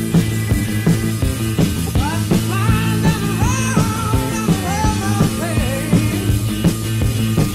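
Blues-rock band recording with a steady beat of bass and drums. From about two seconds in until near six seconds, a lead melody line of bending notes plays over it.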